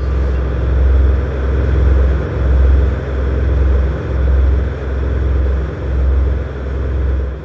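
Deep rumbling drone of a horror sound effect, with a slow swell and dip about once a second over a rough, noisy texture. It cuts in sharply as the synth music before it stops.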